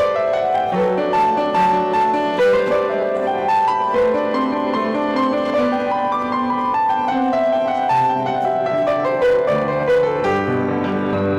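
Piano playing a classical-style piece as the closing postlude of a church service, with single notes and chords moving steadily.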